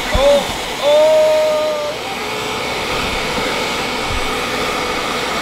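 Hand-held hair dryer blowing steadily. A short high held tone sounds over it about a second in.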